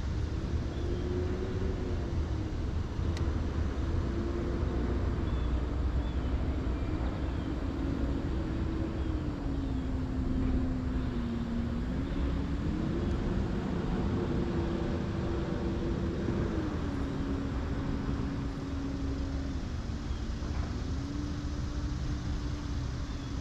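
Electric trolling motor running, a steady whine whose pitch steps up and down between a few set levels several times as its speed is changed, over a steady low rumble.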